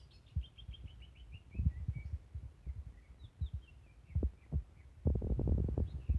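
Cucak ijo (green leafbird) calling: a fast run of high chirps sliding down in pitch, then scattered chirps. Low thumps run under it, turning into a loud stretch of rumbling knocks near the end.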